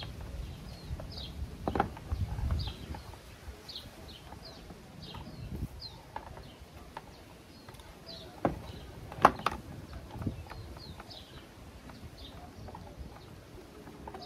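A few sharp knocks and clicks of the hard plastic lip spoiler piece being pushed against the bumper as it is fitted, the loudest a little past halfway. A bird chirps repeatedly in the background.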